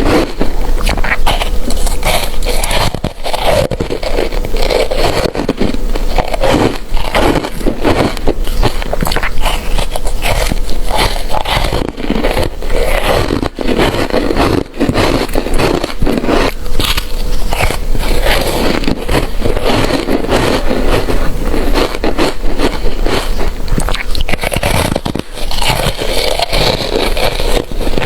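Close-miked ice being bitten and chewed: a dense, continuous run of crunching and crackling, with only a few brief pauses.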